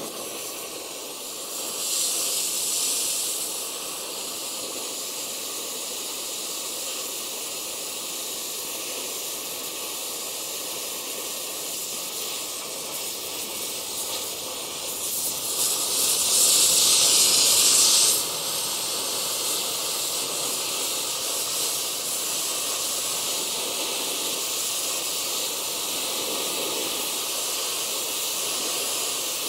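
Gas torch flame hissing steadily while it heats a seized seeder tine pin toward red hot to free it. The hiss grows louder for about three seconds past the middle.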